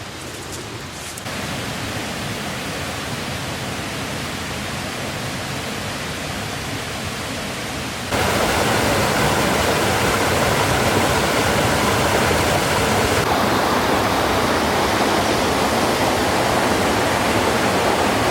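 Clear mountain stream rushing steadily over rocks. It jumps louder twice, suddenly, about a second in and about eight seconds in.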